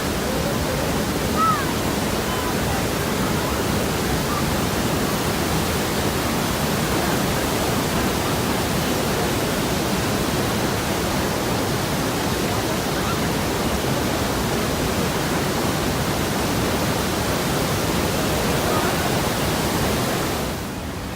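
The Rhine Falls, a large river waterfall, pouring: a steady, dense rush of falling water that holds an even level throughout.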